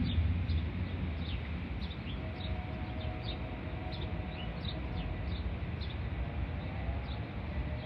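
A small bird chirping over and over, about two short chirps a second, over a low rumble.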